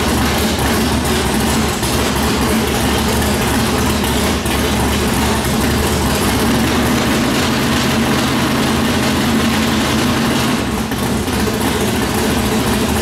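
1970 Plymouth Cuda drag car's 440 big-block V8 running at a steady idle on its first start after a rebuild for a broken connecting rod.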